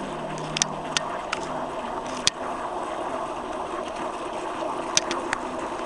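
Radio-controlled model boat running on open water: a steady rushing noise with a few sharp clicks.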